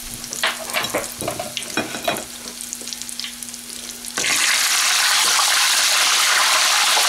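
Bisquick-battered banana chunks deep-frying in a pot of hot oil, crackling and popping. About four seconds in, a slotted metal skimmer goes into the oil and it suddenly breaks into a loud, steady sizzle: the skimmer was wet from the sink.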